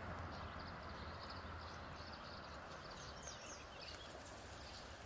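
Faint outdoor background with short high chirps, then about four seconds in a soft sizzle starts as a stuffed trout is laid on the hot grate of a small charcoal grill.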